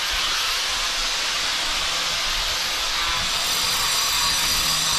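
A steady, loud hiss, with a faint low hum joining about three seconds in.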